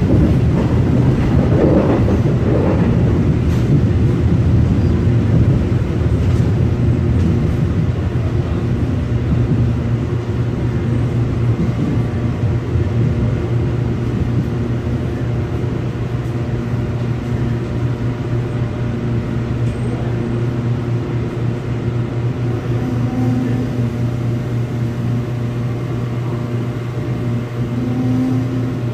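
Seoul Subway Line 4 train heard from inside the passenger car: wheels rumbling on the track under a steady motor hum, easing off gradually as the train slows into the station.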